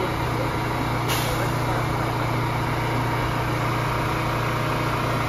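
Subway train standing at the platform, its equipment giving a steady low hum, with a short hiss of air about a second in.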